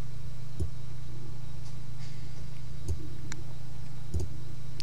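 A steady low hum, with three faint computer-mouse clicks spread through it.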